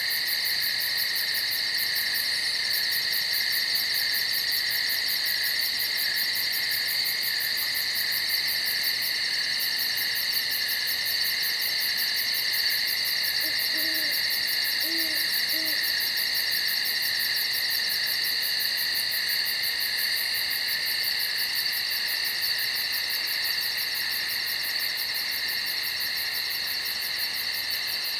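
Steady night chorus of insects, a continuous high trilling with a fast even pulse. About halfway through, an owl gives three short, low hoots.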